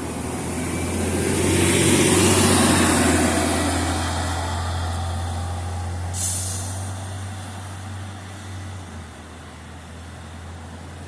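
City bus going past: a steady low engine hum under a noise that swells to a peak about two seconds in and then fades. About six seconds in there is a short hiss of air from its air brakes.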